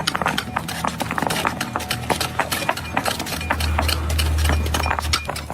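Rapid, irregular clicking and knocking, with a low machine hum that swells about three and a half seconds in.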